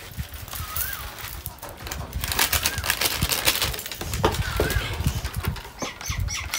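Plastic seasoning and sauce sachets crinkling as they are torn open and squeezed, loudest in the middle, while a bird chirps the same short call a few times.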